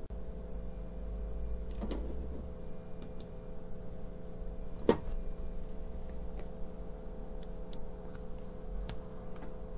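Sparse light clicks at irregular moments, one sharper click about five seconds in, over a steady electrical hum.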